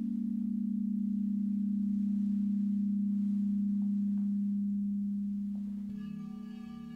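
Large frosted quartz crystal singing bowls ringing: one low bowl holds a steady hum, and about six seconds in a bowl is struck with a mallet, adding a second low tone and a ring of higher overtones.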